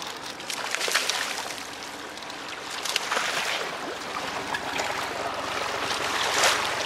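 Water splashing and sloshing beside a small boat as a hooked salmon thrashes at the surface and is scooped into a landing net, with a few louder splashes, the loudest near the end.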